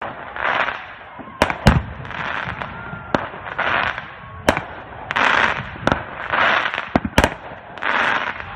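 Fireworks going off: several sharp bangs, a close pair near the end, with a rushing crackle that swells and fades about every second and a half.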